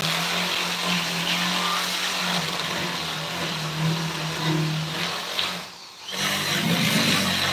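Electric power tool running against wood with a steady motor tone, cutting out briefly near the end and starting again.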